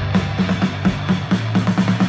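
Garage punk band playing live: a drum kit keeping a fast, steady beat under electric guitar.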